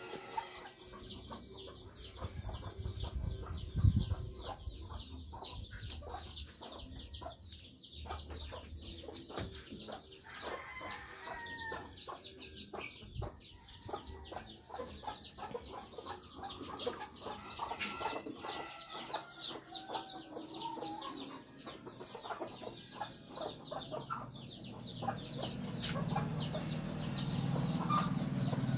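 Chickens clucking in a yard, over a rapid string of short high chirps at about four a second.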